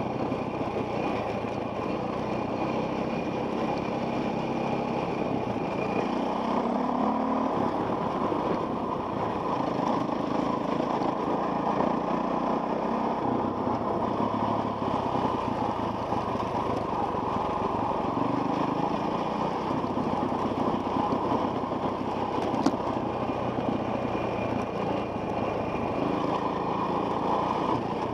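Enduro dirt bike engine running steadily under way on a rough trail, heard from a helmet camera, with one sharp click about three-quarters of the way through.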